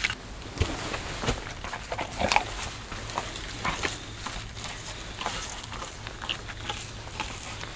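A dog making a few short vocal sounds, among scattered knocks and clicks of a knife cutting raw moose meat on a wooden stump. The loudest cluster comes about two seconds in.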